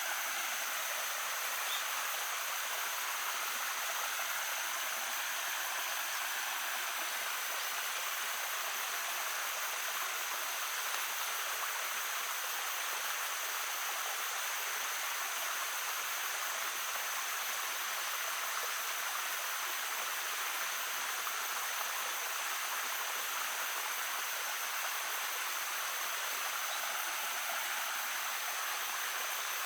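Shallow brook babbling steadily, an even, unbroken rush of running water, with a faint steady high tone over it.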